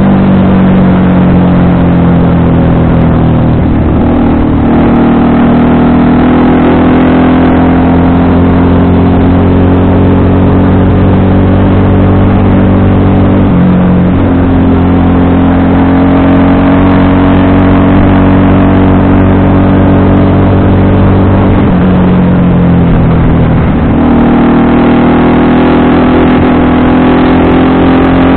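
FKM Victorino 250i V-twin motorcycle engine running under way, with a steady note that shifts pitch in steps several times, about 4, 14, 22 and 24 seconds in.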